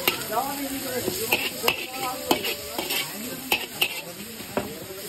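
Flat metal spatula scraping and knocking against a large steel wok as soya chunks and shredded cabbage are stir-fried, with sizzling underneath. The knocks come in an uneven rhythm, about two a second.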